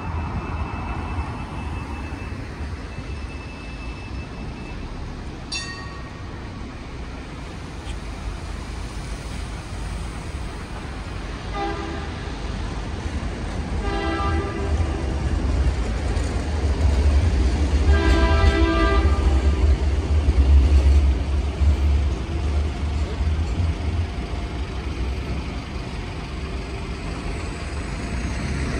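Wright StreetDeck double-decker bus pulling away, its diesel engine running with a low rumble that grows louder about halfway through as it accelerates. Several short horn-like tones sound in between.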